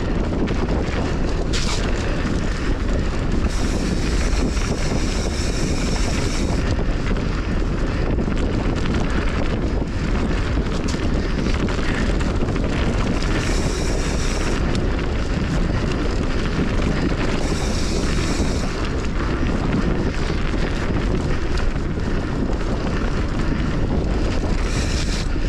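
Wind buffeting the microphone over the rumble of a mountain bike's knobby tyres rolling down a dirt singletrack, with a few short stretches of added high hiss.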